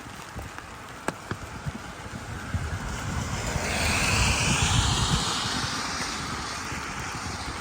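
A car passing on a wet road: the tyre hiss swells about two and a half seconds in, peaks near the middle, and fades away.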